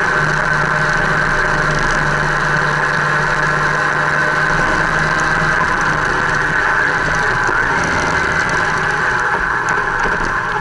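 Motorcycle engine running at a steady cruise with a constant hum, mixed with road and wind noise, as heard from a camera mounted on the moving bike.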